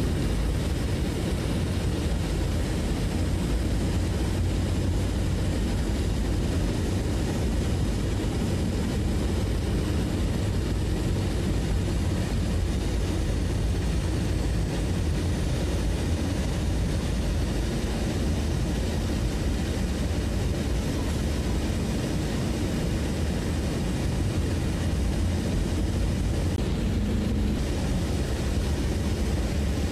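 Steady low engine drone, even throughout.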